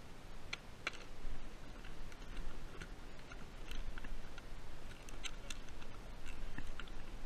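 Scattered light clicks and taps of fishing gear being handled aboard a kayak while a longline set is picked up, over a steady low rumble of wind and water.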